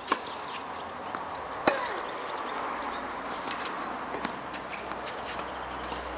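Two sharp knocks of a tennis ball about a second and a half apart, the second louder. They sound over steady outdoor background noise with faint bird chirps.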